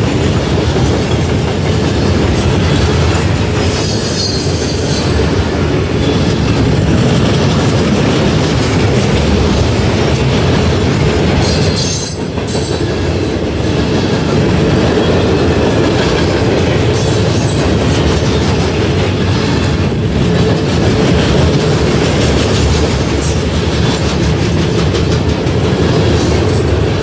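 Norfolk Southern freight train of gondola cars rolling past close by: a loud, steady rumble of steel wheels on rail, with brief faint wheel squeals about four seconds in and again around twelve seconds.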